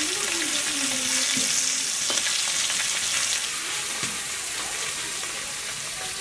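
Hilsa fish pieces frying in hot oil in a metal wok (kadai): a steady sizzle, with now and then the scrape of a metal spatula turning the fish.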